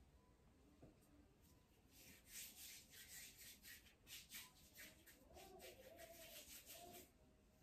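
Faint rubbing of floured palms rolling a ball of bread dough, a run of soft brushing strokes from about two seconds in until near the end.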